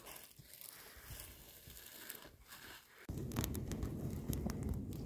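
Dry desert shrubs and stony ground crunching and crackling as someone walks and handles the brush, with scattered sharp clicks. About three seconds in the sound cuts abruptly to a louder scene, with a low rumble under the crackling of dry shrubs.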